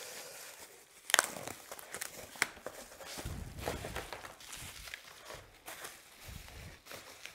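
Corrugated cardboard and bubble-wrap packaging rustling and crinkling as a pane of glass is unwrapped by hand, with a few sharp crackles and some soft handling thumps.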